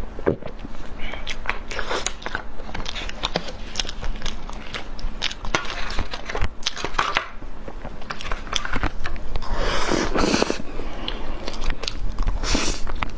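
Close-miked handling and eating sounds: gloved hands crinkle and tap a plastic cake tray while lifting out a chocolate cake roll, with a run of small clicks and crackles. Near the end comes a bite into soft chocolate cake, then chewing.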